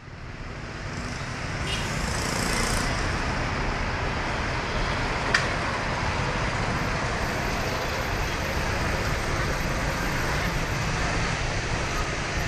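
Street traffic, with cars and motorbikes driving past in a steady noise that swells up over the first second or two. A single sharp click comes about five seconds in.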